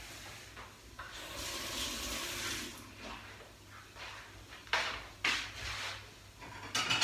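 Kitchen tap running into a sink for about two seconds, starting about a second in. A few seconds later come two short knocks.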